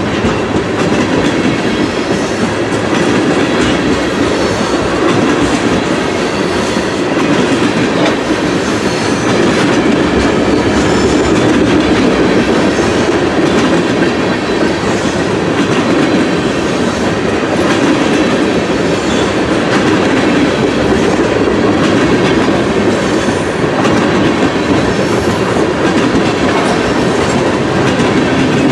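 Train rolling past at steady speed, its wheels clicking over rail joints in an uneven clickety-clack over a continuous rumble of steel wheels on rail.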